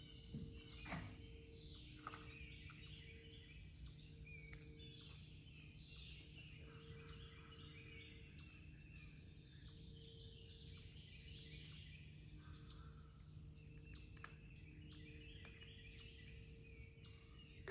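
Faint birdsong: many short chirps and calls repeating throughout, over a quiet steady low hum.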